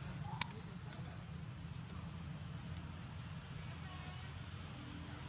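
Steady low hum with a thin, steady high whine above it, and a single sharp click about half a second in.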